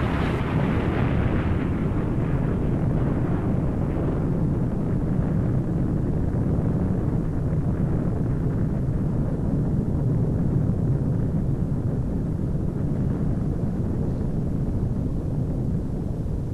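Nuclear explosion's blast: a continuous deep rumble, with a hiss on top that fades over the first few seconds.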